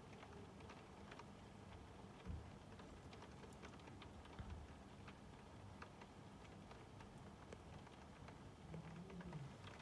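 Heavy rain falling, faint, with many small ticks of drops. Two short low thumps, about two and four and a half seconds in.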